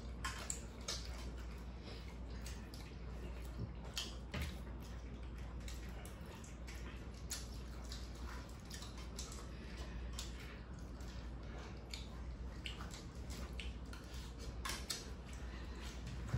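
Several people eating: quiet wet chewing and mouth smacks, with scattered small clicks, over a steady low hum.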